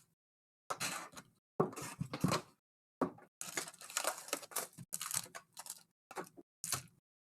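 Plastic wrapping and trading-card packs being torn open and crinkled by hand, in a string of short, irregular rustles and rips with dead-silent gaps between them.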